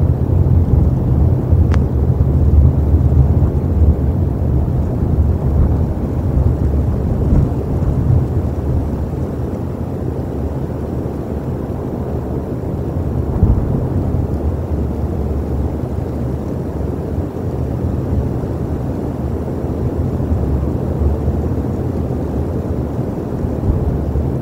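Wind buffeting an outdoor nest camera's microphone: a loud, uneven low rumble throughout.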